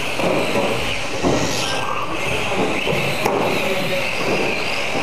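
Radio-controlled mini cars racing on a carpet track: a steady high motor and gear whine, with a rising whine about one and a half seconds in as a car accelerates, and a couple of sharp knocks.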